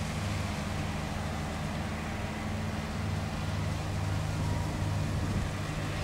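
Diesel freight locomotive approaching at a distance, its engine a low steady hum under a steady hiss.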